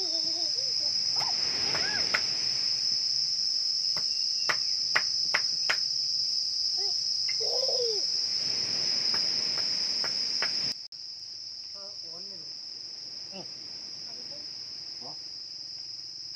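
Steady, high-pitched insect trill, like a cricket chorus, with a run of sharp clicks a few seconds in. About eleven seconds in the sound cuts and the insect trill goes on, quieter.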